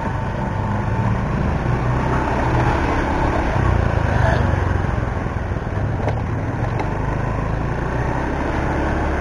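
Motor scooter riding along at low speed: a steady, low engine drone mixed with road noise.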